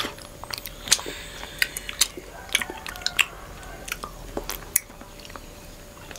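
Close-up eating sounds of honeycomb and popping boba being chewed: irregular wet mouth clicks and small pops.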